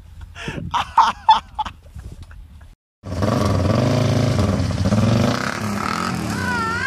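Shouting voices, then after a short break an ATV engine revving hard as the quad churns through a flooded mud hole.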